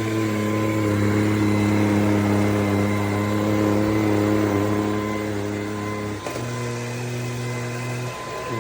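Bissell PowerClean FurGuard cordless stick vacuum running with a steady motor hum, which changes pitch about six seconds in and dips briefly near the end.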